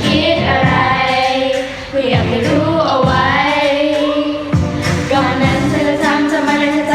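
A choir singing a Thai pop song in harmony, voices moving together with wavering held notes.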